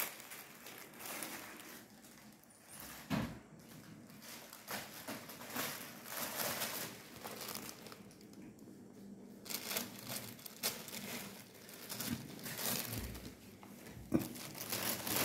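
Thin plastic bag crinkling and rustling in irregular bursts as cats move and tumble in it, with a couple of soft thumps, about three seconds in and near the end.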